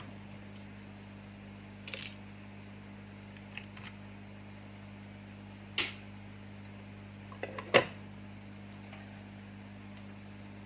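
Metal tweezers clicking and tapping against a phone circuit board as a heated part is lifted off: a handful of sharp clicks, the loudest a little over halfway through, over a steady low electrical hum.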